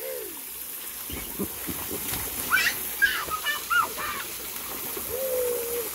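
Children squealing and calling out in short, wordless, pitch-bending cries, with water splashing in an inflatable pool and a hose spraying into it.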